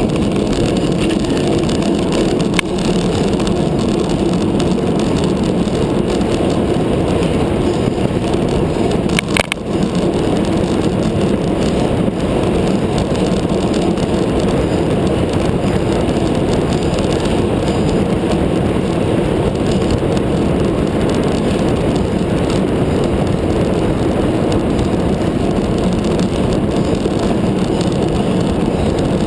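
Steady rush of wind across the microphone of a handlebar-mounted camera, mixed with road-bike tyre noise on asphalt, as the bike rides at race speed. Two short, sharp clicks stand out, one a few seconds in and another about a third of the way through.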